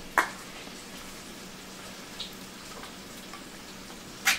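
Liquid from a can of potatoes draining into a kitchen sink as a soft, steady trickling hiss. There is a sharp clack just after the start and another near the end.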